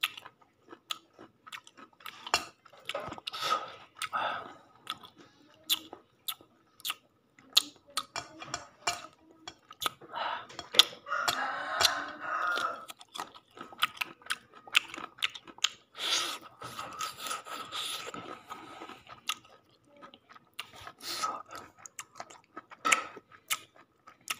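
People chewing and biting chicken with rice, with many short, irregular crunches and clicks.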